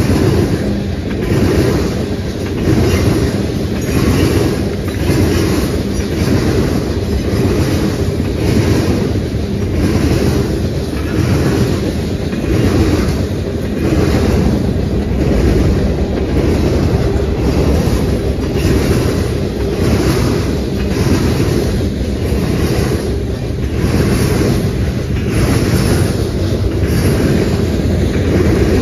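Freight train of tank cars and covered hoppers rolling past: a steady, loud rumble of steel wheels on rail, with a regular clickety-clack about once a second.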